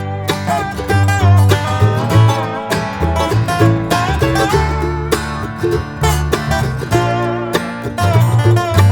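Background music: an upbeat acoustic country-bluegrass tune with plucked guitar and banjo.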